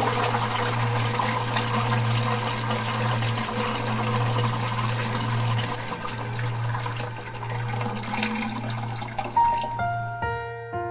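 Toilet flushing: water rushing and draining, slowly fading, over a steady low hum. About nine seconds in, a few keyboard notes begin, each starting sharply and dying away.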